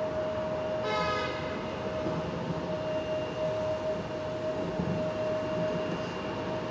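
Embraer 175's General Electric CF34 turbofans running at low thrust, a steady whine over a low rumble. A brief higher-pitched tone cuts in about a second in.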